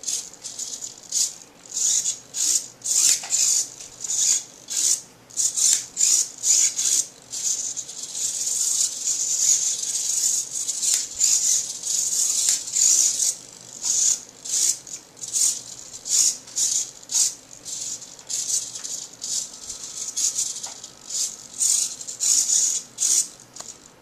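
Two micro servos whirring in many short, high-pitched buzzy bursts as a thumb joystick drives them back and forth, with a longer unbroken run from about eight to thirteen seconds in.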